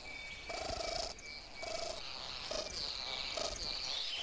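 Forest animal sounds: a short call repeated about five times, roughly once a second, under higher chirping that grows stronger in the second half, over a faint steady thin high tone.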